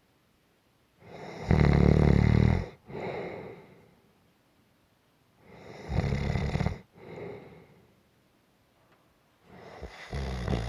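Gentle snoring. There are three rough, snoring breaths in about four seconds apart, the first two each followed by a softer breath out, with quiet pauses between.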